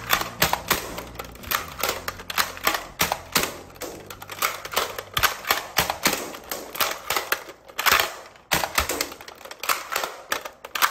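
Two Nerf Strongarm foam-dart revolver blasters being primed and fired over and over: a rapid, uneven run of sharp plastic clacks and pops, about two to three a second.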